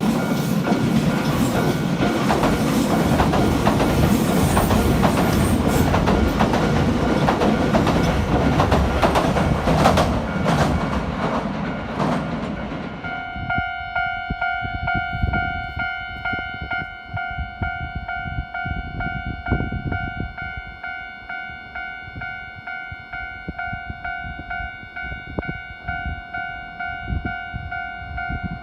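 Nankai Railway electric train passing over a level crossing, its wheels clattering over the rail joints, while the crossing's electronic warning bell rings. The train noise stops about 13 seconds in, and the bell keeps ringing alone in a steady repeated ding.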